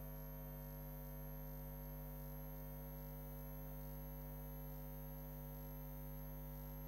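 Steady low electrical mains hum with a buzzy edge and a faint high whine above it, unchanging throughout; no speech.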